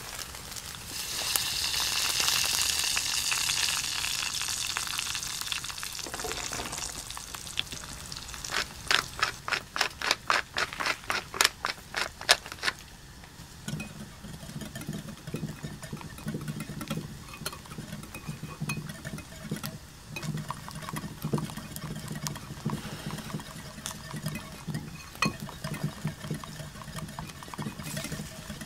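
Steaks sizzling on a cast-iron grill, then a run of quick sharp clicks at about four a second, then a wire whisk beating egg in a ceramic bowl with a steady rhythmic stirring sound.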